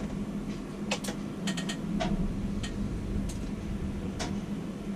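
Tower crane machinery running during a hoist, heard as a steady low hum with a rumble underneath, and scattered light clicks and ticks.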